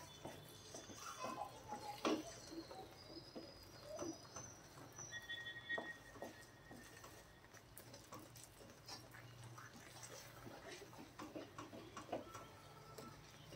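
Wooden spatula stirring and scraping thick wheat halwa around a brass kadai: faint, irregular scrapes, squelches and light knocks of wood on metal. The halwa is cooked to the stage where the ghee separates.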